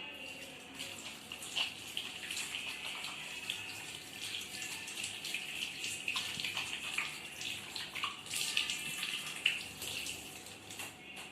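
Tap water running into a sink while hands are washed under it, an even hiss broken by irregular splashes.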